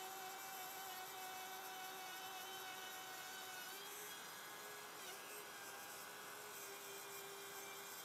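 Trend cordless trim router running and cutting a channel in laminated chipboard, heard faintly as a steady whine. Its pitch shifts slightly about four and five seconds in as the load changes.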